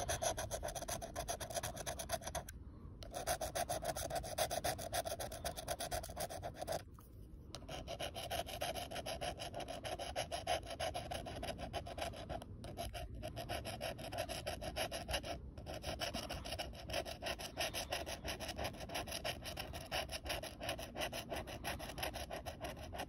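Scratch-off lottery ticket being scratched, the coating scraped away in rapid back-and-forth rasping strokes that stop briefly a few times.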